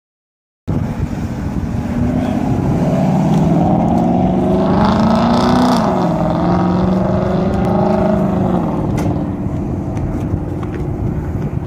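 Shelby Mustang's V8 engine running hard under acceleration, its pitch climbing, dropping sharply at an upshift about six seconds in, climbing again, then falling away as the throttle comes off.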